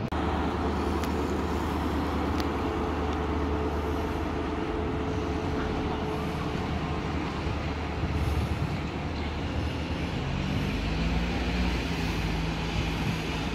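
Diesel engine of an HST's Class 43 power car running, a steady drone with a low hum; a somewhat higher engine note comes in about ten seconds in.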